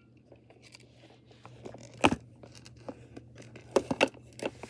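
Dog food being handled into a bowl: scattered light clicks and crinkling, with a sharp knock about two seconds in and a few more clicks near the end.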